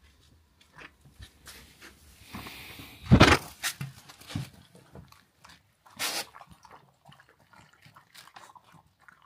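A dog at its food, sniffing and eating, with scattered small clicks and rustles and two louder sounds about three and six seconds in.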